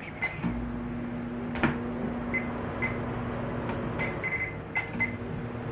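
Microwave oven running with a steady hum while heating a cup of plastisol for soft-plastic baits; the hum starts about half a second in and breaks off briefly around four seconds in. A few faint short high beeps and a couple of light clicks sound over it.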